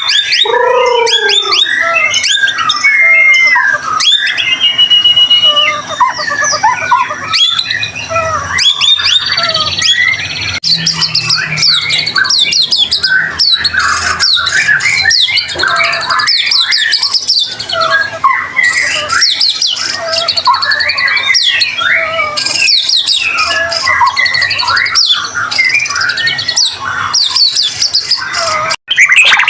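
White-rumped shama (murai batu) singing without pause: a rapid, varied stream of whistles, trills and sharp chattering notes, breaking off for a moment near the end.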